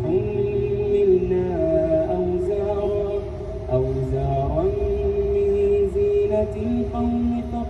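Quran recitation: a single voice chants in long, drawn-out melodic phrases, holding notes and stepping and gliding between pitches.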